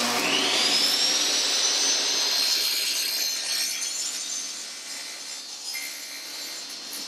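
Table saw switched on: the motor and blade wind up with a rising whine over about two seconds, then run steadily.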